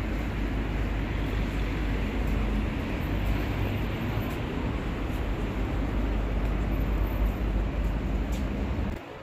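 Steady low rumble of outdoor city street noise, which drops off abruptly near the end.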